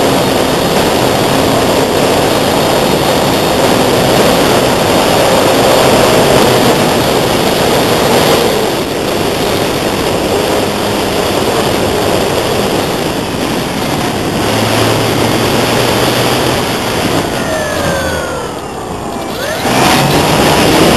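Heavy wind noise on the microphone, with the electric motor and propeller of an AcroMaster RC model aeroplane flying overhead; near the end a whine falls in pitch as the plane passes close by.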